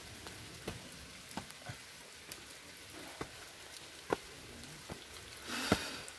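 Scattered light taps and clicks, roughly one a second at irregular spacing, over a faint steady hiss, with a short rustle near the end.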